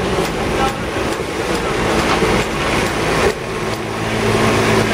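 Heavy track-construction machinery running: a steady diesel-type engine drone that grows stronger near the end, with regular knocks about two to three times a second.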